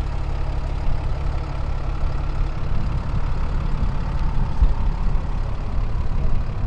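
Diesel engine of a lifted off-road wrecker truck idling steadily, a deep even rumble. About a third of the way in the low rumble turns rougher and less even.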